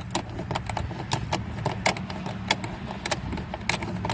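Irregular light clicks and taps of a bolt and plastic handle parts being handled and fitted into a truck's door panel, over a steady low hum.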